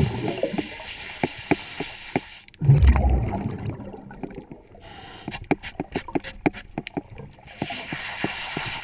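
Scuba diver breathing through a regulator underwater: a burst of exhaled bubbles about three seconds in, a hiss that fades out and returns near the end, and many scattered clicks and crackles.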